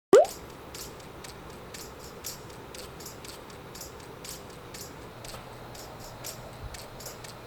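A short sharp sound right at the start, then faint steady room noise with a regular light ticking, about three ticks a second.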